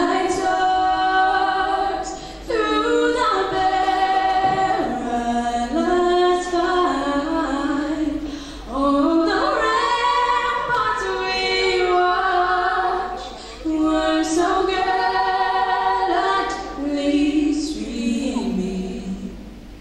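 Unaccompanied female singing: a melody sung a cappella in long held phrases, with short breaks between them.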